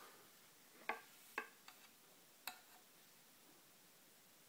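Near silence broken by four faint, sharp clicks in the first half: plastic toy figures tapping and knocking as they are handled and set side by side.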